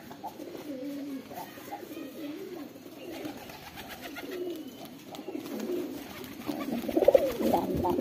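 Rock pigeons cooing: a run of low, wavering coos that grows louder toward the end, with a brief flutter of wingbeats near the end as another pigeon lands.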